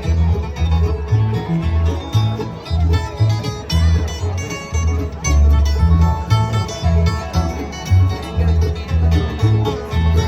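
Bluegrass band playing, banjo and guitar to the fore over a steady bass pulse.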